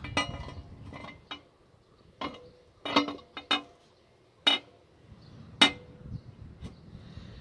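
Metal parts clinking and knocking as a cast-metal intake manifold is worked into place on the engine. About seven sharp clinks with a brief ring come at irregular intervals; the loudest are near the middle and about two-thirds of the way in.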